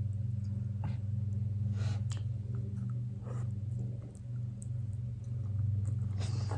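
Close-up eating of instant ramen noodles, slurped and chewed, with a few light clicks. A steady low hum runs underneath.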